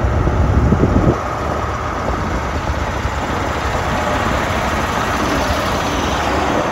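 Class 43 HST diesel power car, with its MTU V16 engine, running past at low speed: a heavy low rumble cuts off suddenly about a second in, leaving a steadier running hum of the power car as it draws by.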